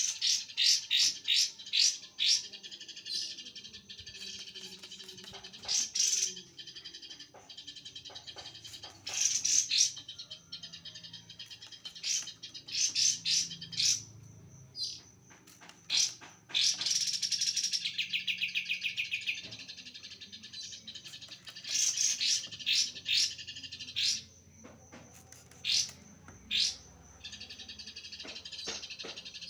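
Songbird chirping in quick runs of sharp, high notes, several a second, with pauses between runs and one longer dense trill about two thirds of the way through.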